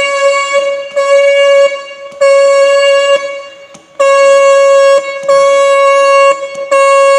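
Car horn wired through a relay, sounded from the combination switch's horn button in about six blasts of roughly a second each, one steady note. The horn circuit works.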